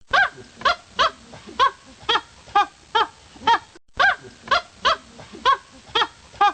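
An animal calling over and over in short pitched calls, about two a second, with a brief break about four seconds in.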